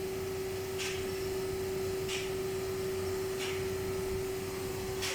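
A steady hum on one pitch, with four short hisses a little over a second apart.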